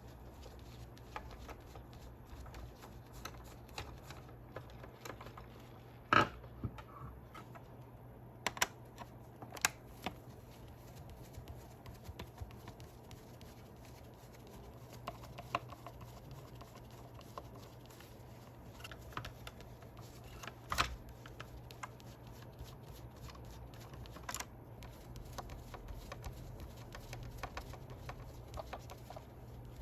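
Scattered small clicks and taps of plastic parts and tools being handled while a gyro stage mechanism is taken apart, with a few sharper clicks among them. A low steady hum runs underneath.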